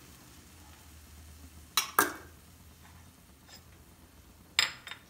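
Small kitchen bowls and utensils clinking against hard surfaces as ingredients are handled: two sharp knocks about two seconds in and another quick pair near the end.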